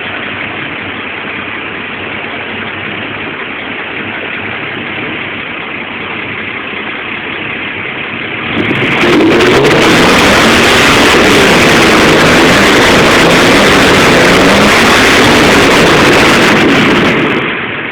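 Chevrolet Opala's carbureted straight-six engine idling, then revved up about halfway through and held at high revs for about eight seconds before dropping back toward idle.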